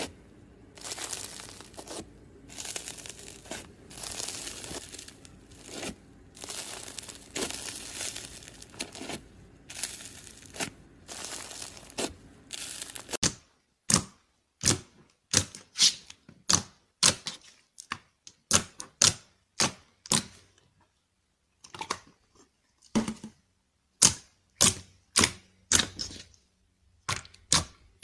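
Slime being handled in two clips. First comes a run of crackling, tearing sounds about once a second, then sharp separate clicks and pops roughly twice a second.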